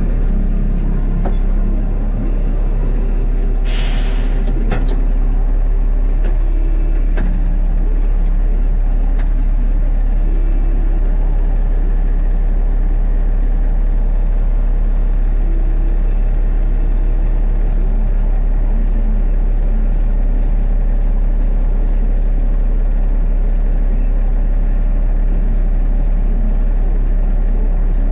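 Mercedes-Benz Unimog U 1400's six-cylinder turbodiesel running steadily while the truck pushes snow with its front plow blade. A short burst of hissing comes about four seconds in.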